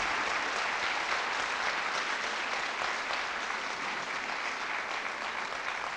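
Audience applauding, many hands clapping, fading a little near the end.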